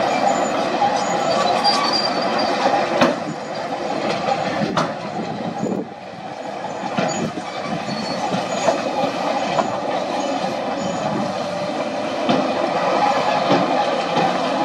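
Heavy earthmoving machinery at work: the diesel engines of a wheel loader and dump trucks running, with a steady whine over the engine noise. There are a couple of sharp clanks a few seconds in.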